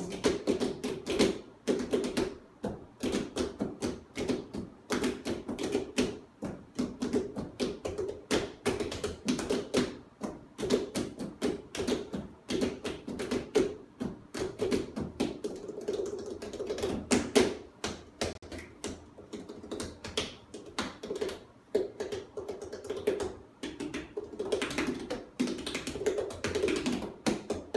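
Five pumpkins of different sizes played by hand as drums: a bass drum line cadence split among the players, a fast, dense, unbroken rhythm of taps.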